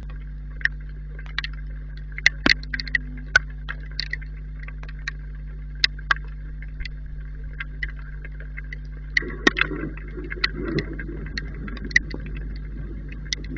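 Steady electrical hum from a security camera's microphone, with scattered sharp ticks; about nine seconds in, a low rumble of distant thunder rises and dies away over a couple of seconds.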